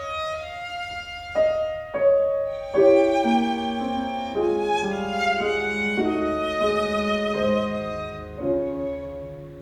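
Instrumental music led by violin with piano: sustained melodic notes and chord changes about every second, growing quieter near the end.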